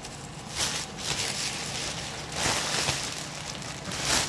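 Plastic packaging bags crinkling and rustling in several short bursts as they are handled, the loudest near the end.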